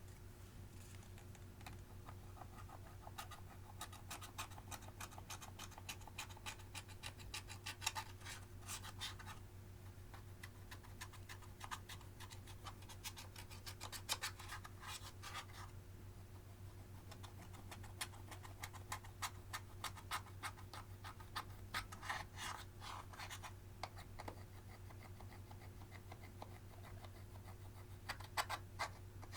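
Slime being kneaded and pressed by hand, giving off bursts of rapid, crackly clicks and pops.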